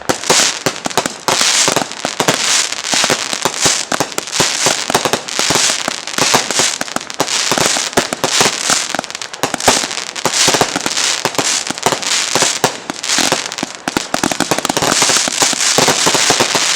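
Tokyo Rose 192-shot XL aerial finale set firing: a loud, continuous rapid barrage of shots and bangs, many each second.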